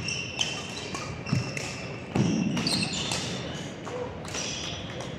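Athletic shoes squeaking on an indoor court floor during a doubles rally, with sharp hits and footfalls and a heavier thud about two seconds in.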